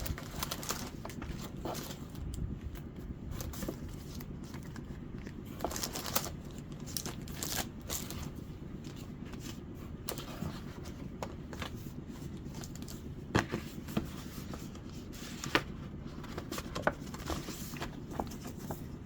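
Paper and thin cardboard stencils and sticker sheets being handled and flipped through, giving scattered rustles, crinkles and light scrapes over a steady low background hum.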